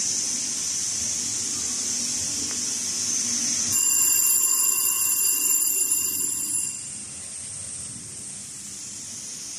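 Steady machine hiss in a factory, then about four seconds in a steady high-pitched electronic buzzer tone sounds for about three seconds and cuts off.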